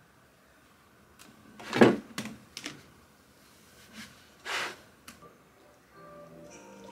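A few knocks, clicks and short rustles of things being handled and set down on a desk, the loudest about two seconds in. Faint music starts near the end.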